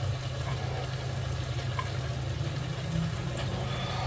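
Steady low hum of a running kitchen appliance, with a couple of faint clicks.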